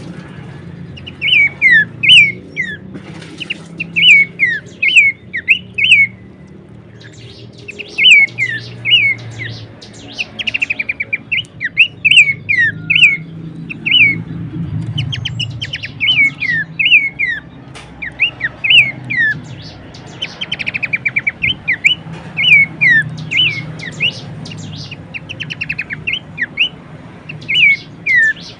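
Pelanduk semak (Horsfield's babbler) calling over and over: short, falling whistled notes in quick groups of two to four, broken by rapid chattering trills. A low steady hum runs underneath.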